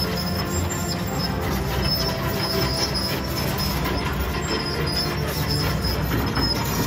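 Kobelco SK-200 hydraulic excavator at work: a steady low engine rumble, with a thin high squeal coming and going above it.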